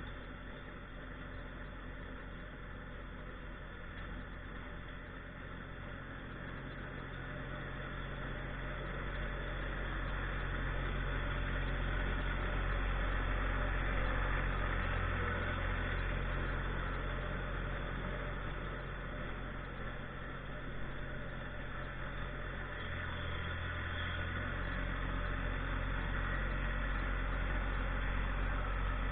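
Tractor engine running steadily. It grows louder about a third of the way in, eases briefly about two-thirds of the way through, then picks back up.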